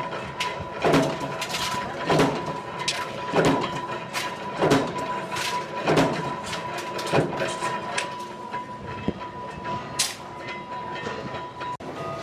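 Hand-operated slotting machine punching slots in steel rack angles: sharp metallic clanks at a regular pace of about one every second and a quarter. Under them runs a steady high whine that cuts off just before the end.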